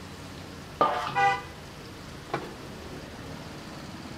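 Hot oil sizzling steadily as pakoras deep-fry in a large karahi. About a second in, a vehicle horn honks briefly, the loudest sound, and a single sharp knock follows a little after two seconds.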